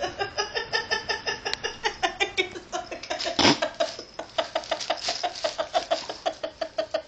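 A woman's stifled laughter: a long, rhythmic run of short laughing breaths, about five a second, with one louder burst about three and a half seconds in.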